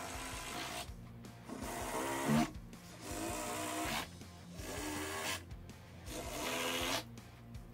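Cordless drill/driver driving screws through a pipe flange into wood, running in a series of roughly one-second spurts with brief pauses between them.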